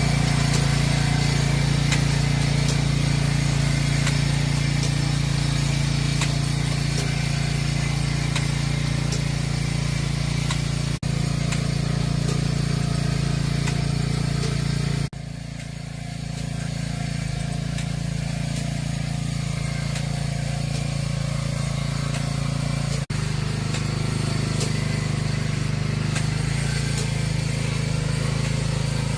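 Small engine of a four-row vegetable transplanter running steadily, with the fast regular clatter of its planting mechanism setting chive seedlings. The sound drops abruptly about halfway through, then builds back up.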